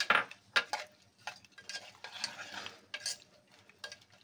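A spoon stirring chopped raw mango, green chillies and soaked seeds in water inside an aluminium pressure cooker: a quick, irregular series of wet scrapes and light knocks against the pot.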